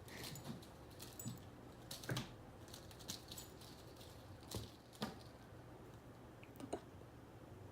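Faint light taps and rustling over a low steady hum, with a few short sharp clicks spaced a second or more apart.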